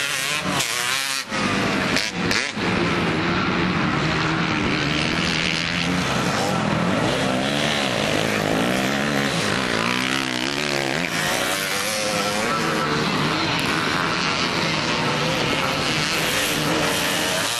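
Dirt bike engines revving hard as riders race past on the dirt course, the pitch climbing and dropping again and again as they accelerate and back off.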